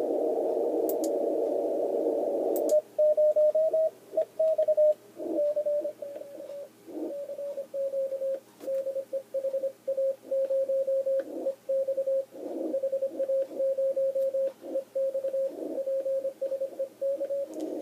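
Radio receiver playing an off-air Morse code signal: about three seconds of static, then a single steady tone keyed on and off in dots and dashes, with faint noise in the gaps.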